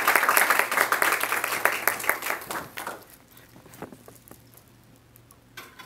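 Audience applauding, a crowd of hand claps that dies away about three seconds in.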